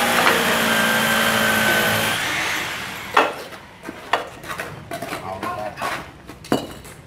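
A motor vehicle's engine running steadily, fading away over the first two and a half seconds, followed by a few scattered sharp knocks, the loudest about three seconds in.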